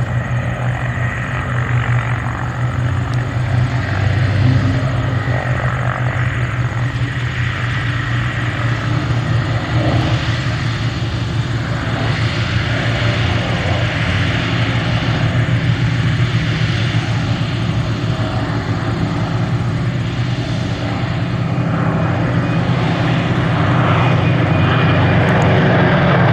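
Three Supermarine Spitfires' Rolls-Royce piston aero engines, a Griffon and two Merlins, running steadily together. The sound grows a little louder near the end.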